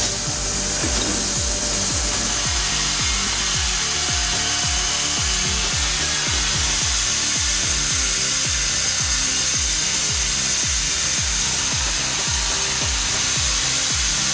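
A sawmill saw cutting through wood: a steady rasping whine with a regular low pulsing, a little over two pulses a second.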